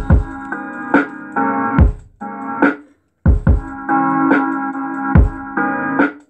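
Electronic music played loud through two 12-inch GAS subwoofers in a ported box: deep kick-drum thumps under sustained keyboard chords, with a sharp snare-like hit about once a second. The music cuts out briefly about three seconds in, then comes back.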